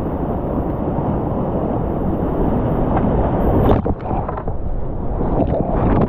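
Whitewater rushing around a kayak, a steady muffled roar close to the camera, turning into sharper, brighter splashes of water hitting the boat and lens from about four seconds in.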